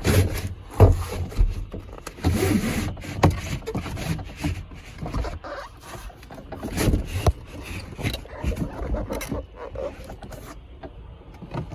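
Irregular knocks, clicks and scrapes of hands and metal parts being worked loose one-handed on a pickup truck.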